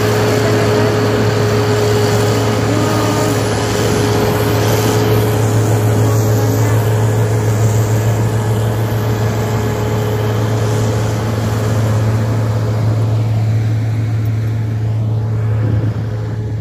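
Volvo wheel loader with a front-mounted rotary snow blower, its diesel engine and blower running steadily under load as it cuts through deep snow and throws it out of the chute. A steady low hum with a constant whine above it, fading a little near the end as the machine pulls away.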